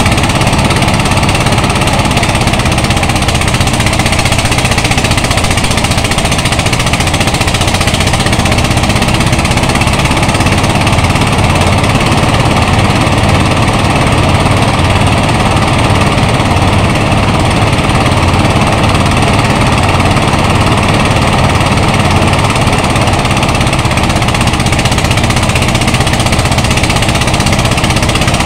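Engine-driven rice thresher running steadily while cut rice stalks are fed into it. Its engine and threshing drum make a loud, constant mechanical noise that does not let up.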